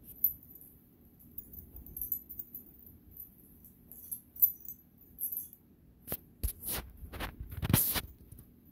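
Small collar bell jingling in quick, faint tinkles as an orange kitten and a tabby cat wrestle. About six seconds in come a handful of sharp scuffling rustles and bumps, the loudest near the end.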